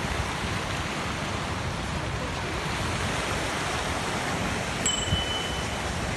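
Steady rush of fountain jets splashing into a pool, with wind rumbling on the microphone. A sharp click about five seconds in, followed by a brief high steady tone.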